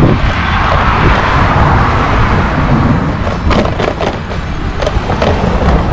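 Wind buffeting the microphone on a moving bicycle, over a steady road rumble. A rushing noise swells and fades over the first three seconds, and there are a few sharp knocks about three and a half seconds in.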